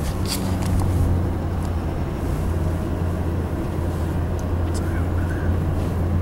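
Steady low drone of a truck's engine heard from inside the cab, its pitch stepping up a little at the start.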